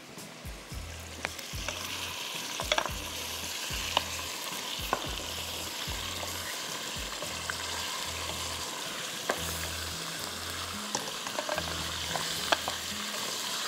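Mutton frying in hot oil in a pressure cooker: a steady sizzle that grows louder about two seconds in, while a wooden spatula stirs the meat and clicks against the pot now and then.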